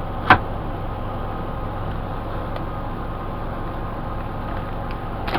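Steady low hum and hiss of background machinery, with one sharp click about a third of a second in.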